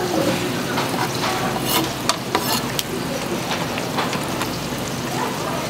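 A large kitchen knife chopping boiled sundae and liver on a wooden cutting board, a quick run of sharp knocks about two seconds in, over a steady hiss.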